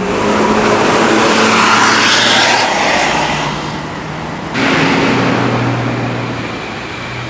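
Road vehicles driving past, with engine and tyre noise swelling and then fading. A second vehicle's engine cuts in suddenly and loudly about four and a half seconds in.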